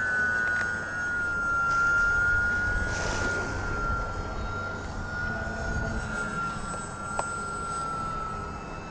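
Electric twin-motor TwinStar RC model plane flying overhead: a steady high whine from its two motors and propellers, two close pitches that ease down a little in the first second and then hold.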